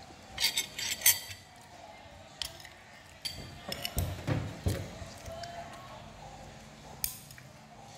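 Cutlery and plates clinking against each other and a glass tabletop, loudest in a quick cluster about a second in, with a few dull knocks a little after halfway.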